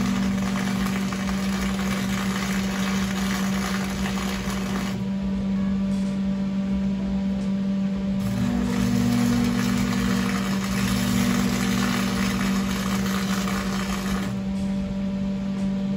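Electric arc welding: a sputtering crackle in two stretches, about five seconds and then about six seconds, over a steady electrical hum.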